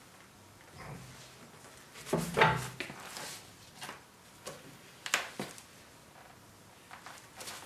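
Tire and wheel being set down and shifted on a tire changer's steel turntable: a loud thump about two seconds in, then scattered lighter knocks and clicks.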